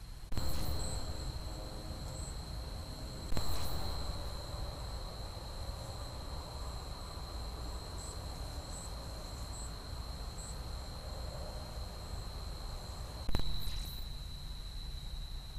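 Steady, high-pitched trill of crickets at night, picked up by trail-camera microphones over a low rumble and hiss. Three sharp clicks break it, just after the start, about three seconds in and near the end, each a sudden jump in loudness that then settles.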